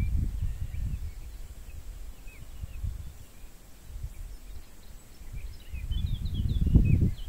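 Wind buffeting the microphone in a low rumble that eases in the middle and picks up again near the end, with small birds chirping now and then, most often near the end.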